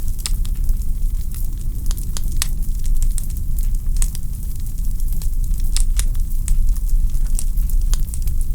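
Wood fire crackling in a fireplace: frequent, irregular sharp pops and snaps from the burning logs over a steady low rumble.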